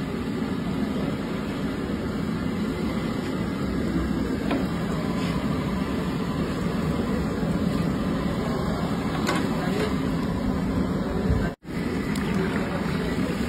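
Potato rolls deep-frying in a large kadhai of hot oil, the oil bubbling and sizzling steadily over a low rumble. The sound cuts out for an instant about three-quarters of the way through.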